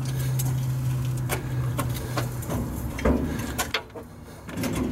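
Scattered metal clicks and knocks from a rusted, seized crane gear being worked back and forth with a bar to free it, with a heavier thump about three seconds in. A steady low hum runs underneath and stops at that point.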